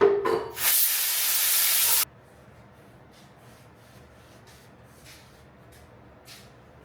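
A brief noise, then a burst of pressurized spray hissing for about a second and a half before cutting off suddenly, as when a part is sprayed clean during engine work. Faint soft ticks follow.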